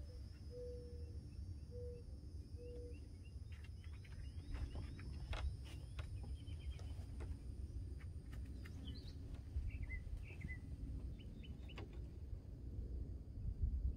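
Birds chirping and calling in short scattered phrases over a steady low rumble, with three short low notes in the first few seconds and a few light clicks.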